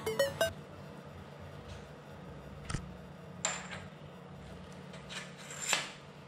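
Tail of electronic background music, cutting off about half a second in, then a few light metallic clinks and knocks of tools or parts being handled on a work surface, the loudest near the end.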